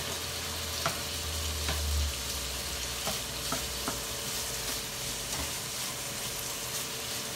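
Steak bites and zucchini noodles sizzling in a skillet of reducing sauce while a utensil stirs them, with a few light clicks and scrapes against the pan.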